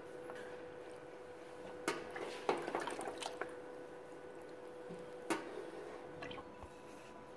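Hot melted butter ladled over a round metal tray of unbaked baklava: liquid pouring and dripping, with three sharp clinks of the steel ladle against the butter pot and tray, the loudest about two and a half seconds in. A faint steady hum runs underneath.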